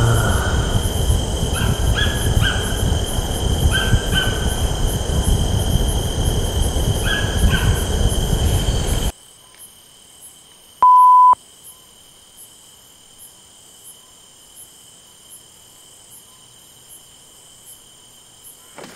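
Steady chirring of night insects under a loud, even rushing noise that cuts off abruptly about nine seconds in. After that only the insects remain, with one short, loud, high electronic beep about two seconds later.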